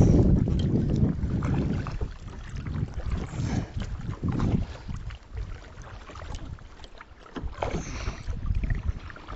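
Wind buffeting the microphone in uneven gusts, strongest in the first two seconds and flaring again a few times.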